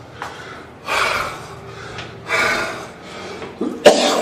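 A man breathing heavily: loud breaths or sighs about a second in, again midway, and a sharper one near the end.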